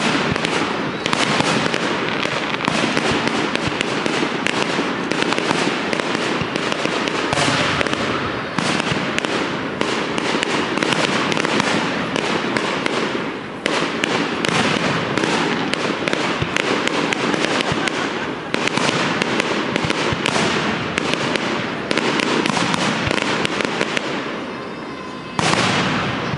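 Fireworks display: a dense, continuous barrage of aerial shell bursts, many sharp reports overlapping with almost no gap, easing briefly near the end before one more loud burst.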